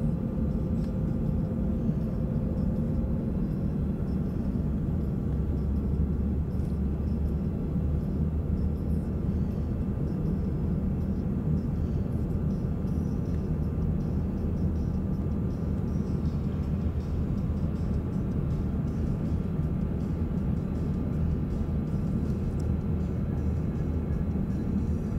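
Airliner cabin noise during descent on approach: a steady low rumble of engines and airflow, with a few faint, even whining tones above it.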